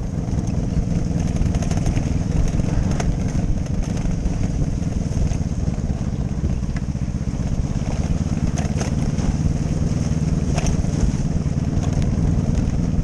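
Motorcycle engine running steadily at an even, low pace, heard from on the bike, with a few light clicks over the rough road.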